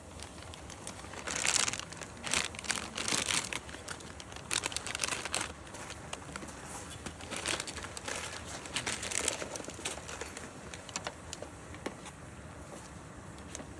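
Crinkly material being handled, crumpled and rustled in irregular bursts.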